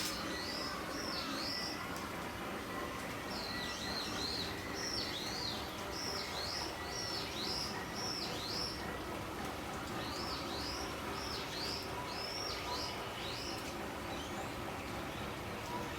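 Small bird calling: runs of short, high chirps, each dipping and rising in pitch, coming in three bursts over a steady background hum.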